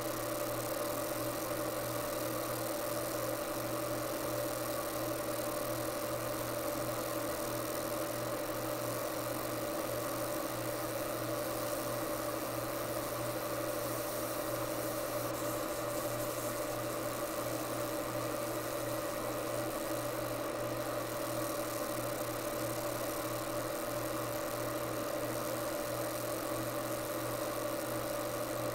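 30-watt fiber laser engraver running steadily while it engraves text into an AR-15 lower receiver: a constant machine hum with a few held tones over an even hiss.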